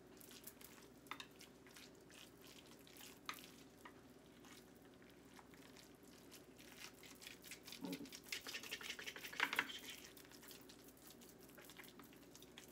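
Faint clicks and scrapes of a spoon mixing tuna salad in a glass dish, busier for about two seconds some eight seconds in.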